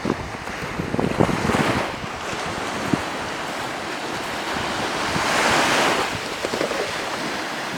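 Small sea waves washing onto the beach, two surges about four seconds apart, with wind buffeting the microphone.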